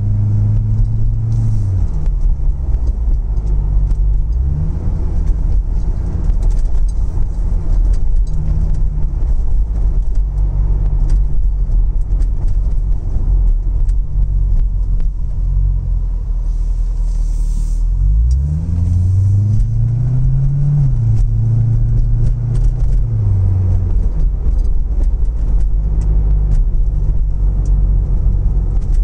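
A car's engine and road noise heard from inside the cabin while driving at low speed. The engine note drops about two seconds in, then climbs as the car accelerates about two-thirds of the way through, and settles again shortly after.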